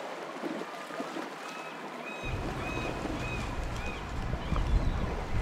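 Wind rumbling on the microphone, coming in about two seconds in and growing louder toward the end, with a run of short high chirps in the middle.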